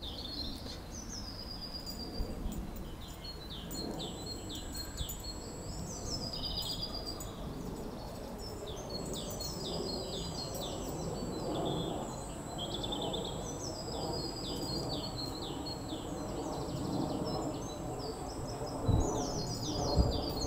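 Several garden songbirds singing, with overlapping chirps and quick descending trills, over a steady low outdoor rumble. There is a thin steady high whine for most of the time, and a couple of low thumps near the end.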